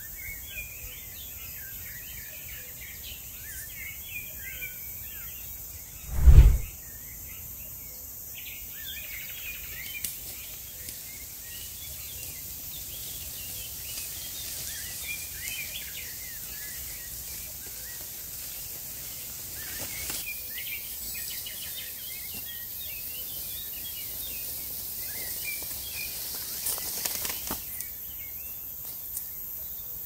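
Woodland birds chirping and singing throughout over a steady high hiss, with one loud, low thump about six seconds in and a brief rustle near the end.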